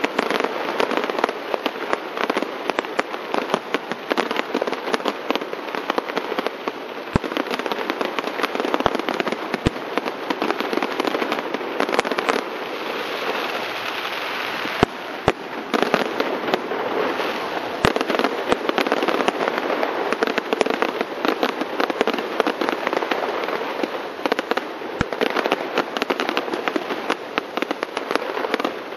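Aerial fireworks display: a dense, continuous crackle of bursting shells, with sharp bangs scattered through it.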